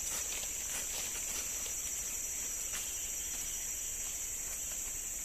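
Steady high-pitched drone of a tropical forest insect chorus, with a few faint rustles and snaps of small undergrowth being cleared by hand in the first second or so.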